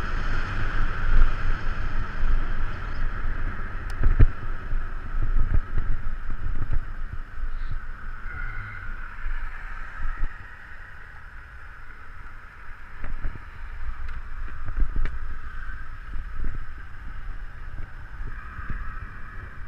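Wind buffeting the microphone of a camera moving along a road, a gusty low rumble over steady road noise, easing off about halfway through.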